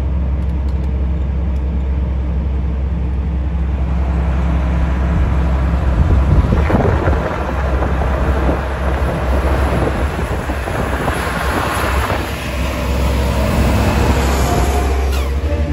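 Steady low drone of a Volvo tractor unit's engine heard inside the cab. From about four seconds in, road noise swells as a dump truck comes alongside and passes.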